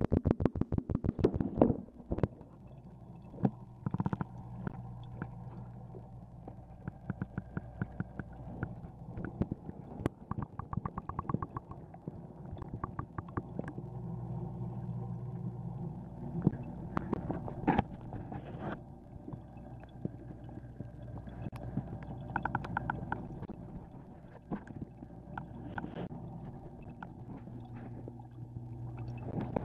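Muffled underwater sound inside a fish tank, heard through a submerged Contour Roam2 camera: a steady low hum, with rapid runs of clicks and scattered knocks throughout.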